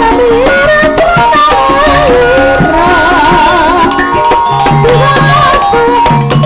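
Javanese kuda kepang (Emblek) gamelan music: hand drums beating a steady rhythm under held metallophone tones, with a wavering melody line rising over them in the middle.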